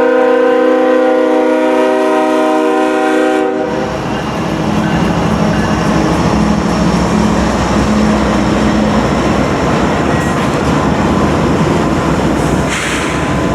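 Norfolk Southern diesel freight locomotive's air horn sounding a steady multi-note chord, cutting off about three and a half seconds in. Then the locomotives pass close with a heavy engine rumble and the clatter of wheels on rail.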